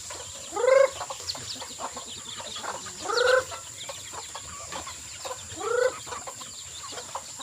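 Chickens calling: three loud, short pitched calls about two and a half seconds apart, each rising and then falling, over a steady high hiss.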